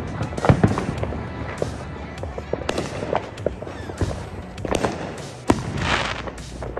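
Consumer fireworks going off: a string of sharp bangs and crackling pops, with a rushing hiss at about five and a half seconds.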